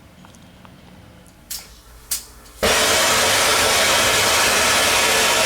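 Two faint clicks, then about two and a half seconds in a brazing torch is lit and starts a loud, steady rushing hiss.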